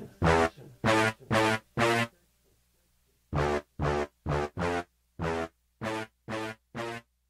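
Instrumental hip hop music: a synthesizer playing a string of short, separate notes, about two a second. The notes break off for a little over a second about two seconds in, then resume.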